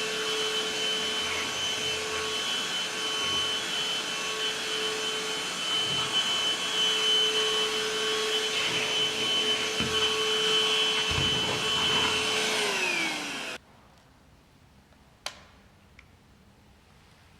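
Novete cordless handheld vacuum cleaner running steadily with a whine, then switched off about thirteen seconds in, its motor winding down in pitch. A single sharp click follows about two seconds later.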